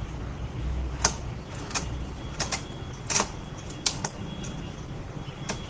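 About six sharp clicks and taps at irregular spacing, the loudest a little past three seconds in, from small objects being handled, over a steady low hum.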